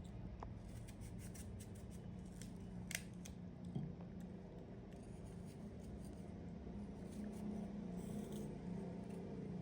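A run of small, sharp clicks and light rubbing handling noises, closely spaced during the first few seconds, over a steady low hum.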